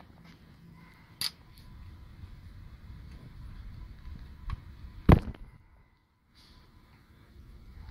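A few sharp knocks and clicks, one about a second in and the loudest about five seconds in, over a faint low rumble.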